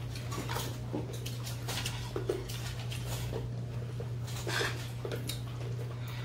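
Children eating: scattered short smacks of chewing mouths and small clinks and scrapes of spoons on ceramic plates, over a steady low hum.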